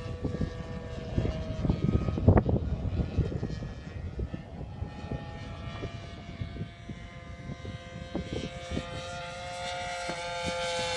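A radio-controlled model airplane's engine and propeller drone in flight, a steady pitched tone that shifts up near the end as the plane passes. Short thumps of wind hit the microphone throughout.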